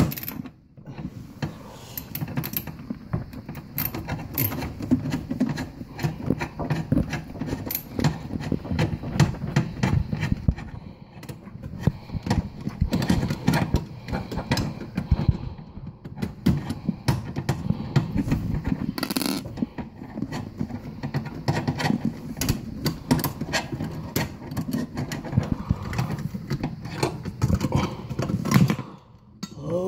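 A screwdriver working at the dishwasher's metal electrical junction box: continuous scraping and clicking of the tool and screw on sheet metal, with small knocks and rattles of hands and tools close by.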